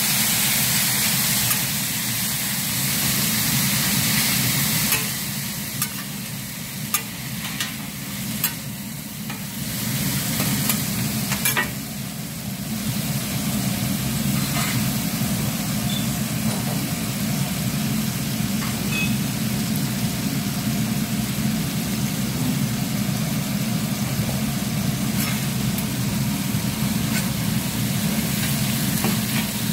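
Food sizzling and frying on a hot flat iron griddle, stirred and scraped with metal spatulas, with sharp clicks of the spatulas on the metal, over a steady low hum. The sizzle grows louder and stays steady after water is poured onto the griddle, about halfway through.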